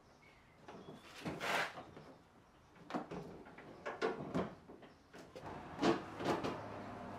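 Plastic front bumper cover of a Dodge Challenger being handled and pressed into place on the car: a run of irregular knocks, scrapes and clicks, loudest about a second and a half in and again near six seconds.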